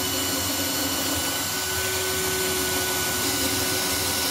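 Cordless drill running steadily at one constant speed, boring a pilot hole into a softwood batten so the wood won't split when it is screwed together.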